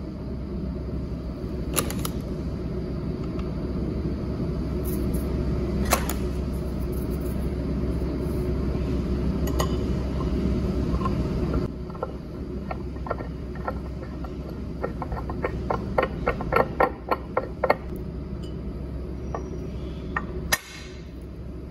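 Steel machine parts handled and fitted by hand on a steel bench block: a few sharp metal clicks, then a quick run of light ticks about two thirds of the way through, and a single clack near the end. A steady low hum runs underneath.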